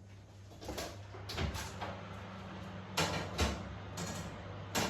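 Kitchen handling noises: about five separate knocks and clunks of a door and metal trays being moved, over a low steady hum.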